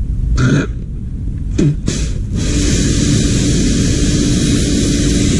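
A jet from the hose blasting the paint-cup lid of a spray paint gun clean: a few short bursts, then from about two seconds in a steady loud hiss with a motor hum underneath.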